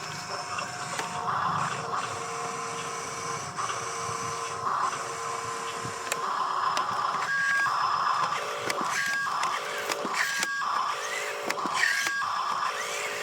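Small electric motors of a radio-controlled construction toy whining steadily. From about halfway through they run in short stop-start spurts, the pitch switching back and forth between higher and lower, with light clicks.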